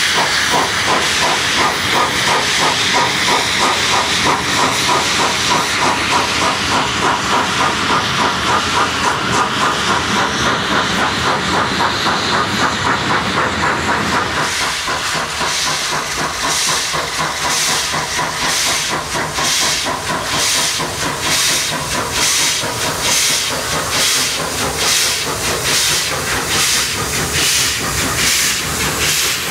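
FS class 741 steam locomotive working its train away, a steady hiss of steam with a regular pulsing exhaust beat that changes character about halfway through.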